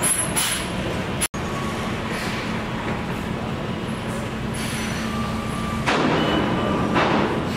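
Heavy tractor-trailer trucks hauling precast concrete viaduct segments, their diesel engines running with a steady low hum as they pass slowly, with short hisses of air brakes around six and seven seconds in. The sound drops out for a moment about a second in.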